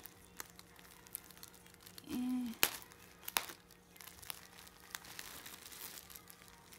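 Bubble wrap and packing tape crinkling as fingers pick at the tape on a bubble-wrapped parcel, with scattered sharp crackles. A brief low hum from a voice about two seconds in.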